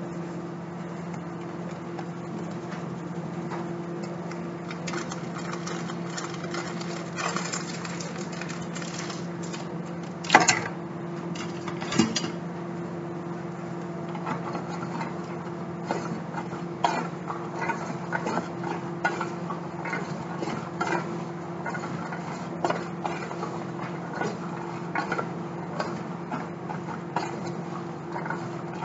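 Wooden spoon stirring chickpeas in a stainless steel pot, with scattered knocks and clinks against the pot, the two loudest about ten and twelve seconds in. A steady low hum runs underneath.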